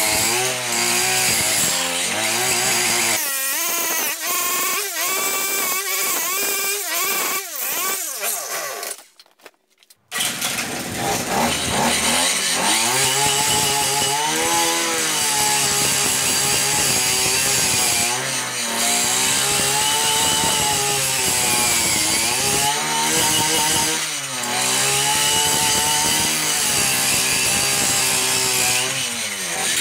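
Brushcutter engine driving a chainsaw attachment, revving up and down as if under cutting load. About a third of the way in the engine winds down and drops out for about a second, then runs again.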